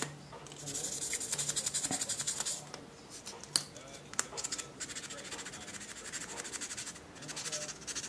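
Fine 1200-grit sandpaper rubbed by hand over a steel pocketknife blade in quick back-and-forth strokes, in two spells of about two seconds each, scrubbing off surface rust. A single sharp click comes midway between the spells.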